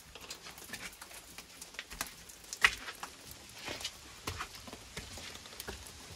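Water dripping from a leaking stone roof and footsteps on wet stone steps: scattered, irregular sharp taps, one louder tap about two and a half seconds in.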